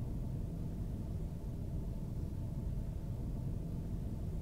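Steady low rumble of a car in motion, heard from inside the cabin: engine and road noise, with no change throughout.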